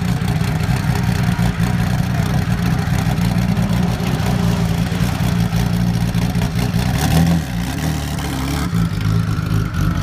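Porsche 911 GT1 race car's twin-turbo flat-six idling steadily, with a short rise in revs about seven seconds in.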